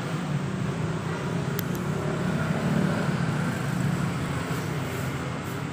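Steady background motor-vehicle noise: a low rumble with a hiss, swelling a little in the middle.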